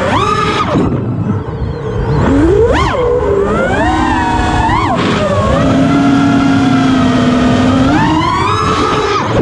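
FPV quadcopter's brushless motors whining, the pitch rising and falling sharply with each throttle change, with a dip about a second in, a surge near three seconds, and a steady stretch before another rise near the end. Wind buffets the on-board microphone underneath.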